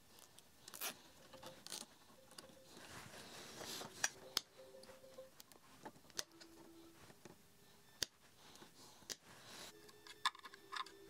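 Quiet handling noise with scattered sharp clicks and snips: cable ties being fastened around a cable sleeve and their tails cut off with cutters.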